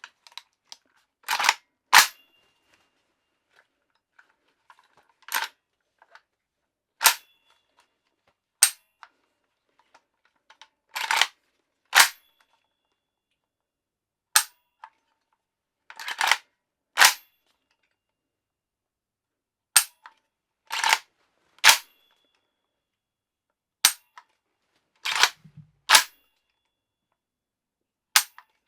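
Sharp metallic clacks of an AK-pattern pistol's action being worked by hand, about a dozen in all: mostly pairs, a short rattle as the bolt carrier is drawn back then a hard crack as it slams forward, with single sharp clicks in between.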